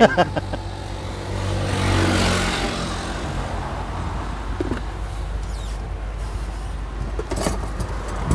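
A motor vehicle's engine running close by, swelling as it passes about two seconds in and falling slightly in pitch, over a steady low engine hum, with a few brief knocks near the end.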